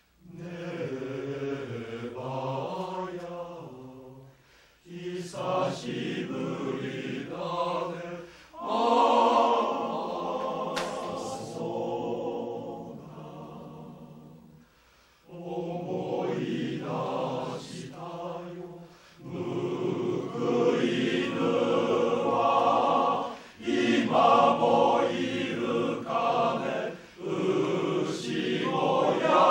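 Men's chorus singing a Japanese song in harmony, phrase by phrase with short breaths between the phrases.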